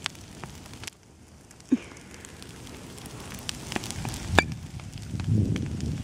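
Bonfire of brush and cardboard burning, crackling with scattered sharp pops, one louder pop a little over four seconds in. A low rumble builds near the end.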